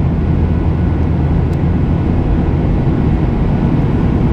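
Boeing 737-800's CFM56-7B turbofan engines running steadily, heard from inside the cabin by the wing: a constant low rumble with a faint steady whine above it.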